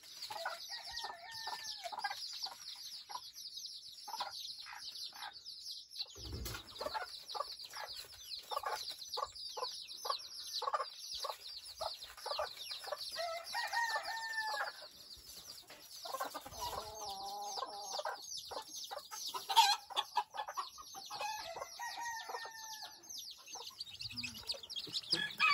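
A brood of bantam chicks peeping continuously, many at once, while the bantam hen clucks low in short repeated runs among them.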